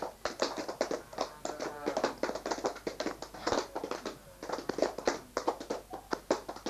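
A group clapping and tapping with their hands: quick, irregular sharp claps several times a second, with a few voices in between.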